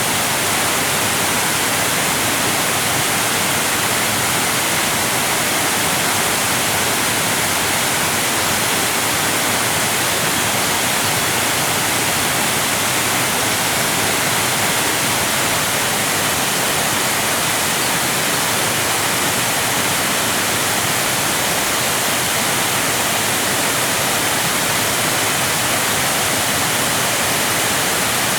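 Waterfall, water cascading and pouring continuously in an even, unbroken rush that is heavy in hiss and light in low rumble.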